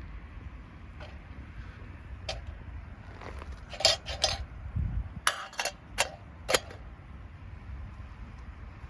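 A quick run of sharp clinks and knocks of hard objects being handled, about eight strikes bunched together in the middle, over a steady low rumble.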